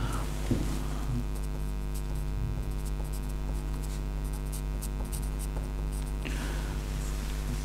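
Steady electrical mains hum with many evenly spaced overtones, under the faint scratching of a pencil writing on paper through the middle, and a brief soft rustle near the end.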